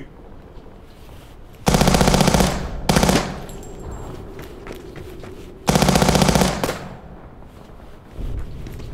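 Submachine gun firing in rapid automatic bursts. A burst of about a second comes about two seconds in, then a quick short burst, and another burst of about a second comes near the middle.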